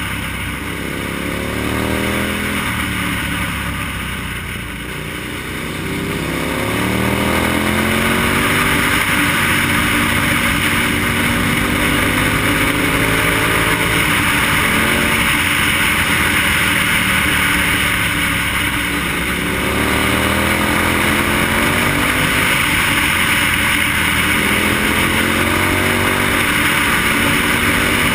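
KTM motorcycle engine running under way, its revs rising and falling with the throttle, over a steady rush of wind at the helmet. The engine eases off about four seconds in and briefly again near twenty seconds, then pulls back up.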